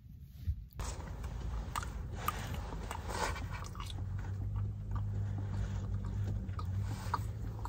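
A person biting and chewing leftover fried chicken, with short crunching clicks, over a steady low hum. The first second is nearly quiet.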